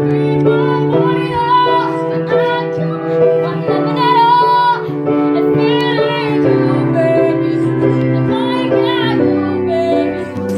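Music: a song with a singing voice over held instrumental notes.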